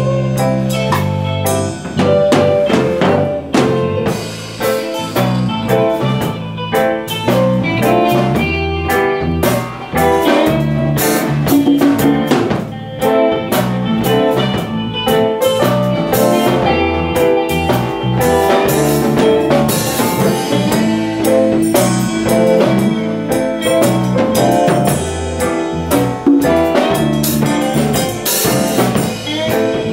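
Rock band playing live: drum kit, electric guitar and keyboard together, loud and continuous.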